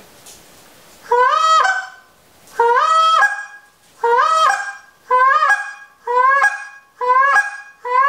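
Goose call blown in a series of about seven honks. Each note starts low, rises, breaks up to a higher note and is cut off sharply by the tongue. The first two are longer and the rest come shorter and faster.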